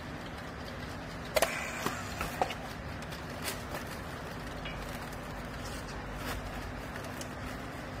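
A steady low machine hum, with a handful of sharp clicks and knocks from about one and a half to two and a half seconds in, as a handheld battery strapping tool and plastic strapping are handled.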